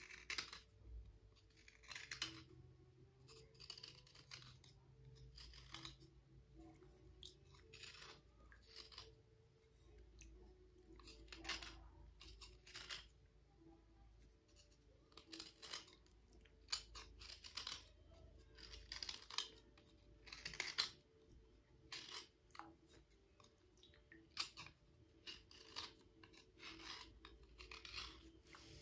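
Slate cubes being scraped and rubbed clean: quiet, short, gritty scrapes that come irregularly, about one or two a second.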